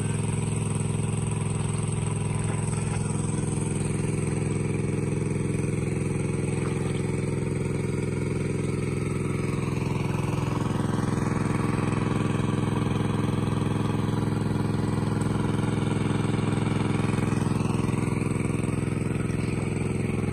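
Small engine-driven water pump running steadily at one constant speed, pumping water out of a fish pond.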